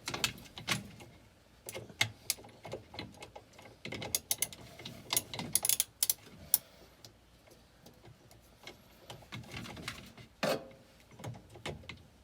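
Socket ratchet clicking and metal tools clinking in short, irregular bursts as the washing machine agitator's bolt is snugged down with a 7/16 socket.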